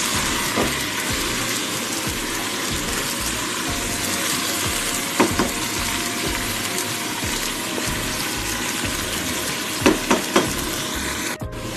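Chicken pieces sizzling in oil in a cooking pot with onion, garlic and ginger as they release their own juices: a steady hiss, with a few light knocks of a utensil against the pot.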